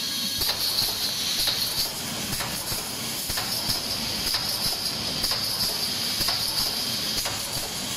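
Automatic wire mesh welding machine running: a steady hiss of compressed air from its pneumatic welding cylinders, with regular sharp clacks, one to two a second, as the welding heads close on each cross wire to spot-weld it.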